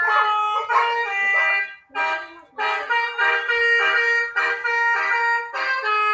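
Four-trumpet telolet horn playing a quick tune, several horn tones sounding together and changing note every fraction of a second, with two short breaks about two seconds in.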